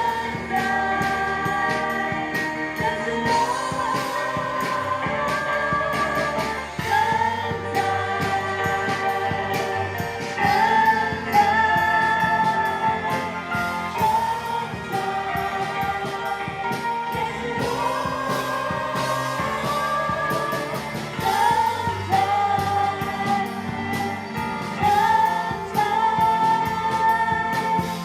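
Live worship music: singing over a band, with a steady beat.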